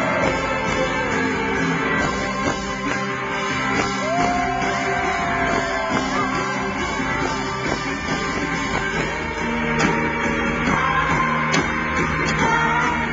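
Live rock band playing, with singing over electric guitars and drums, heard from the crowd in front of the stage.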